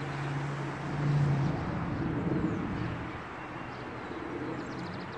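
A motor vehicle passing, its engine a low steady hum that is loudest about a second in and then fades into a wash of outdoor background noise.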